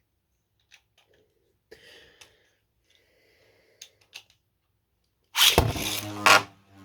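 3D-printed Beyblade tops launched into a stadium: a few faint clicks as the launchers are readied, then about five seconds in a sudden loud rip of the launches as the tops land and spin with a steady hum.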